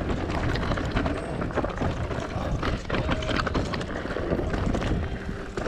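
Enduro bike clattering down a rough, rocky trail: tyres crunching over stones and the bike rattling with constant irregular knocks, over a low rumble of wind on the microphone.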